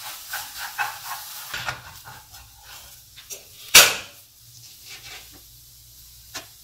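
A spatula scraping and tapping in a frying pan, a run of small clicks and knocks, with one sharp loud clack about four seconds in, over a faint low hum.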